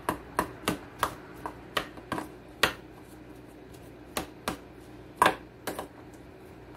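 A metal utensil clinks against a stainless steel mixing bowl as a chopped salad is stirred. The taps are sharp and irregular, with a short lull around the middle.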